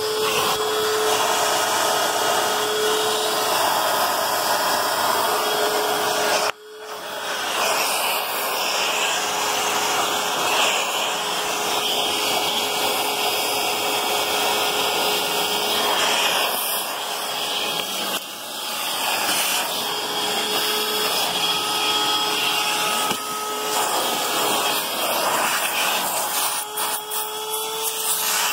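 Vacuum cleaner running steadily while cleaning a car's carpet and interior trim, with a short sharp dip in level about six seconds in before it picks back up.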